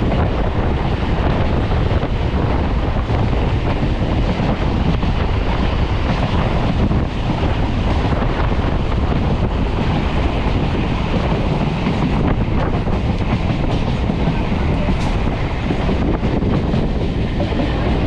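Running noise of an ICF-built EMU local train at speed, heard at an open window: a steady rumble of wheels on rails, with wind on the microphone.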